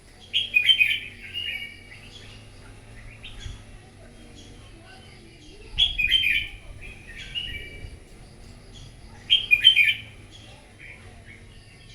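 Red-whiskered bulbul singing its competitive (fighting) song: three loud bursts of quick, chirpy phrases, about half a second in, around six seconds and just before ten seconds, with softer chirps between them.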